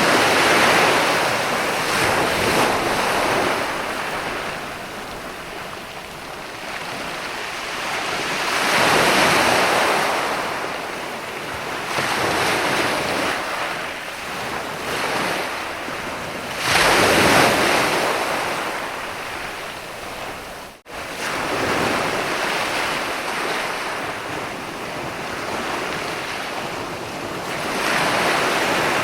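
Sea waves breaking and washing up a sandy beach, the surf swelling and fading in a slow rhythm about every eight seconds. About two-thirds of the way through, the sound cuts out for a split second.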